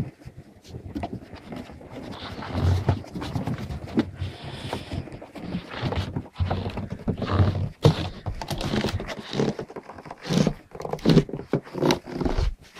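Schapendoes puppies panting and growling in irregular bursts, with several louder low growls near the end.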